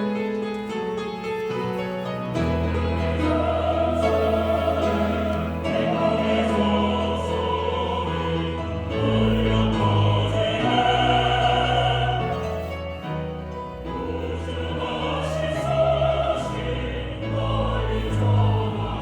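Church choir singing an anthem with instrumental accompaniment. The voices come in about three seconds in, over sustained low accompaniment notes.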